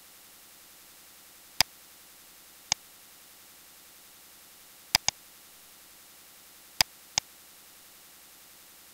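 Computer mouse button clicks: six sharp single clicks, some in close pairs, over a faint steady hiss.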